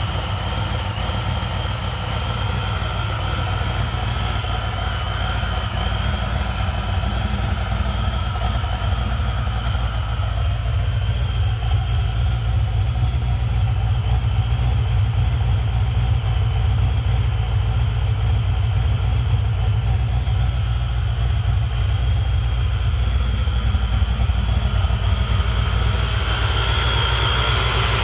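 Supercharged 496 cubic-inch big-block V8 with a ProCharger and intercooler, in a 1968 Chevrolet Camaro, idling steadily with a deep rumble. It grows slowly a little louder over the stretch.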